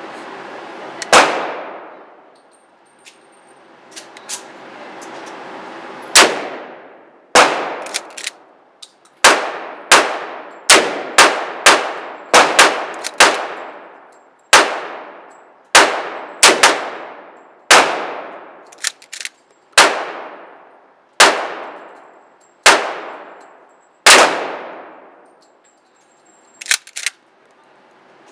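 Gunshots in an indoor shooting range: a string of about twenty shots, many in quick pairs, each followed by a long echo off the range walls. Between the shots there are a few faint clicks.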